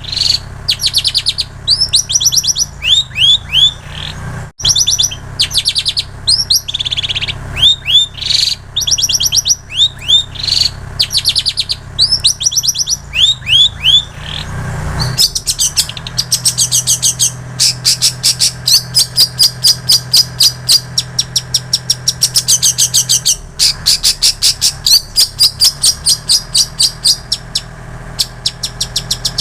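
A long-tailed shrike singing a mimicked song: short phrases of high sweeping whistled notes, then from about halfway a fast, steady run of repeated chirps at several a second, copying prinia and canary calls. A steady low hum runs underneath.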